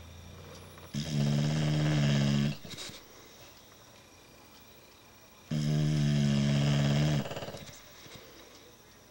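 Bulldog snoring: two long snores about four seconds apart, each lasting about a second and a half, with quieter breathing in between.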